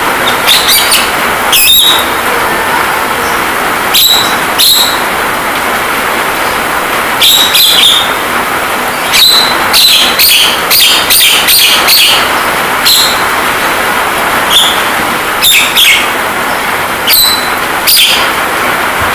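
Javan myna giving short, sharp calls over and over, sometimes in quick runs, over a steady hiss of rain sound.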